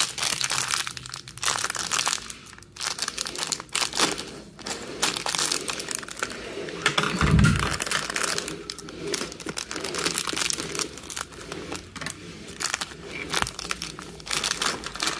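Thin clear plastic bags of small plastic puzzle pieces crinkling and rustling as fingers handle and open them, in irregular crackles. About seven seconds in there is one dull thump.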